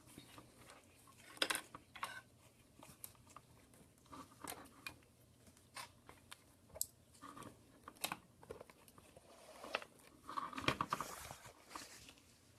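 Faint clicks, taps and rustles of hands handling small tools and a phone's parts at a workbench, with a denser rustle about ten seconds in.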